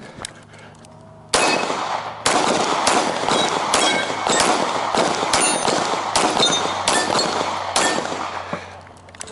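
Pistol fired rapidly at steel targets: about a dozen shots over some seven seconds, starting a little over a second in, with the ring of struck steel plates after many of them. The shooting eases off in the last second.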